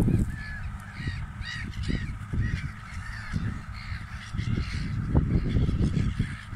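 A flock of gulls calling over and over, short harsh calls overlapping one another. Underneath, gusts of wind rumble on the microphone.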